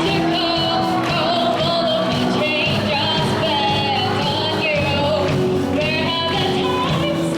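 Live pop-rock band of drums, electric guitar, bass and keyboard playing with a female lead vocal singing over it, in a large hall.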